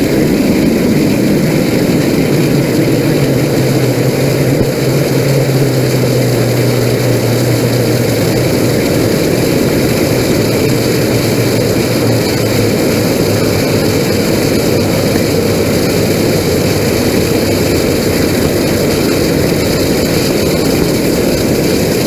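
A LOX-propane liquid rocket motor firing on a static test stand, fed by tank blowdown: a loud, steady roar, with a low hum in it from about three to twelve seconds in.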